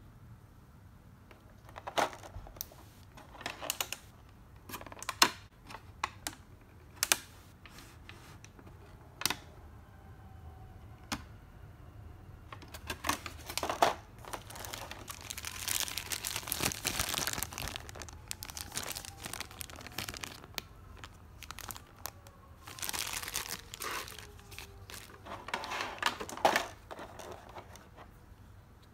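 Clear plastic blister packaging and a small plastic action figure being handled: a scatter of sharp plastic clicks and taps, then two longer stretches of crinkling plastic about halfway through and near the end.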